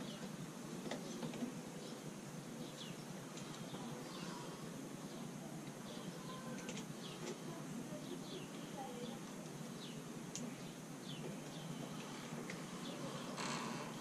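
Faint, scattered high chirps of small birds over a steady low background hum, with a short rustling scrape just before the end.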